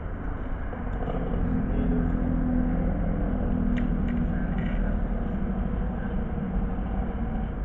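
Steady low rumble with a droning engine-like hum that swells a little in the middle, typical of motor traffic.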